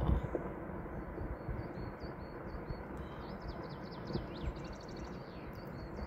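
Small rock avalanche: a continuous low rumble of stones falling down a mountain slope, with a few dull knocks. Small birds chirp over it from about three seconds in.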